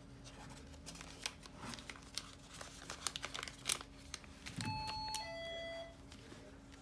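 Plastic sterile-implant packet crinkling and rustling as it is handled with metal forceps. About two-thirds of the way through, a two-note electronic chime sounds, a higher note followed by a lower one.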